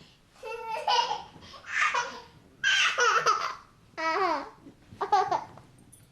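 An 18-month-old baby boy laughing in repeated high-pitched bursts, about one a second with short pauses between. Some bursts slide in pitch like squeals.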